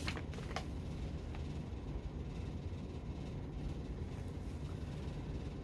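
Steady low background hum, with a couple of faint short clicks in the first second.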